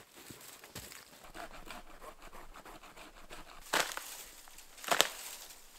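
Dead wood snapping by hand: two sharp cracks about a second apart, the second the louder. Before them come soft scuffs and rustles of moving through leaf litter and brush.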